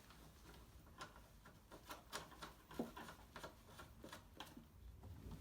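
Near silence with faint, irregular metal clicks from tightening an M10 nylock nut onto a kart's rear bumper bolt.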